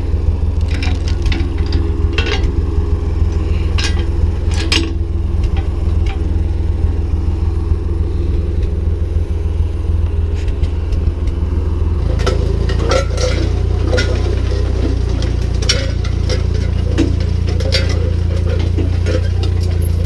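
Ford 4000 tractor engine running steadily while pulling a disc harrow, with metal clinking and rattling from the harrow and its chains. The engine note changes to a steadier drone a little past halfway.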